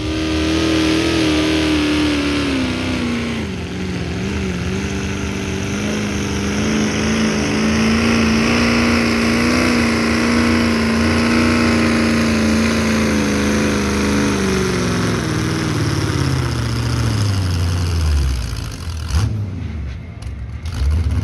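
Farm pulling tractor's engine running hard at full throttle while dragging a weight-transfer sled. Its pitch dips early, holds steady for most of the pull, then falls away over several seconds as the tractor slows to a stop near the end.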